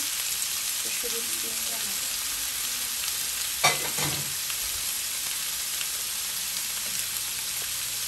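Bottle-gourd skin strips, peas and broccoli frying in a pan with a steady sizzle, and one sharp clack a little over halfway in.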